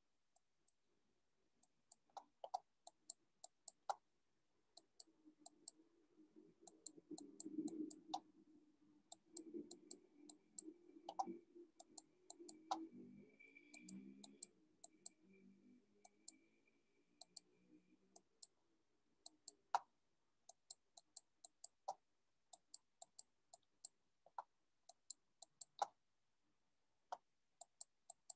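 Faint computer-mouse clicks in quick irregular clusters, from marking up a slide with an on-screen pen, over near silence, with a faint low murmur for several seconds in the middle.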